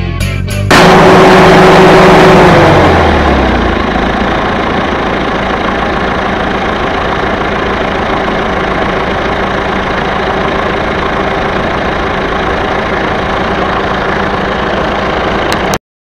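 John Deere 450C crawler dozer's diesel engine comes in loud about a second in. Its pitch drops over the next few seconds as the revs fall back, then it runs steadily until it cuts off suddenly near the end.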